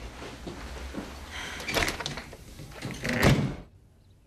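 A door being opened and shut: a few knocks about two seconds in, then a louder bang of the door closing about three seconds in.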